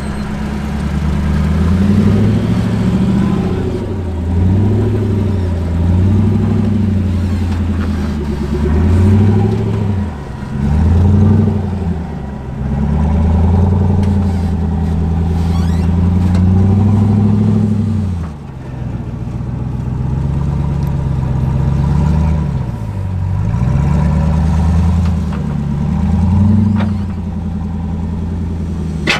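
Off-road 4x4's engine revving up and falling back again and again as the throttle is worked on a rocky trail, its pitch rising and dropping every second or two.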